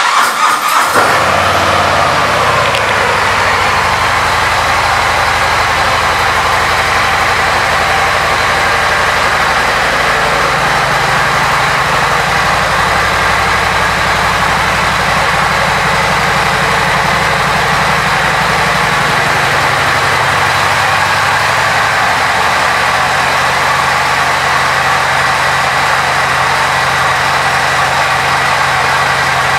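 Harley-Davidson Heritage Classic 114's Milwaukee-Eight 114 V-twin starts with a sudden loud burst, then settles within a couple of seconds into a steady idle.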